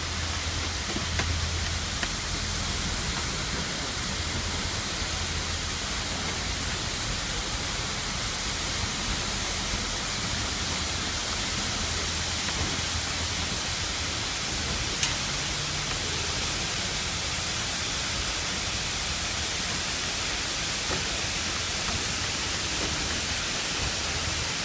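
Steady rushing noise of the Kuranda Scenic Railway train in motion, with a low rumble that rises and falls and one brief click about fifteen seconds in.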